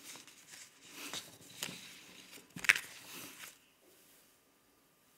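Sheets of paper rustling as they are handled and turned over on a table, with one sharp knock, the loudest sound, a little over two and a half seconds in.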